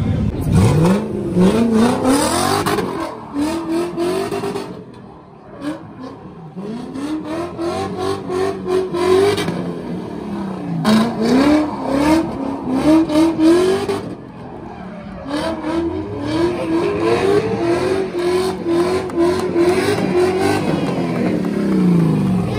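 BMW E36 drift car's V8 engine revving hard about four times, each time climbing steeply, wavering while held at high revs, then falling away, as the rear tyres spin and smoke through the drift.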